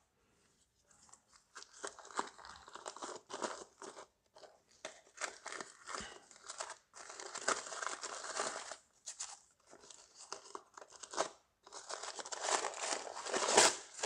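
White tissue packing paper being unwrapped and crumpled by hand: irregular crinkling and rustling, loudest near the end as it is balled up.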